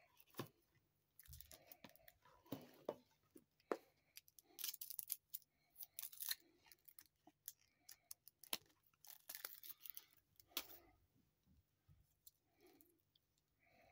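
Quiet rustling, sliding and small clicks of paper cards and a printed booklet being taken out of a cardboard watch box and handled, busiest from about a second in and dying away near the end.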